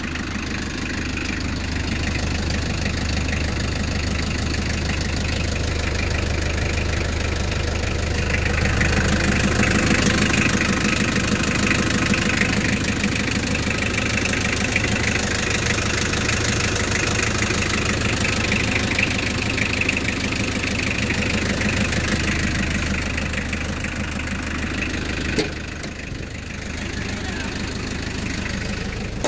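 A 1992 Nissan Vanette's 2.0-litre LD20 naturally aspirated diesel engine running steadily. It is louder for a few seconds about a third of the way in. A single sharp knock comes near the end, after which it sounds quieter.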